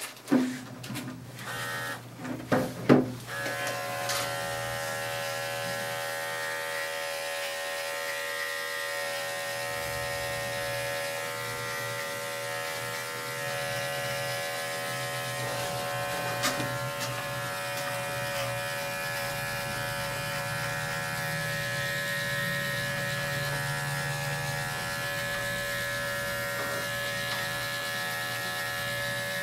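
Small electric dog-grooming clipper buzzing steadily as it clips the dog's coat. It is switched on about three seconds in, after a few knocks and clicks from handling.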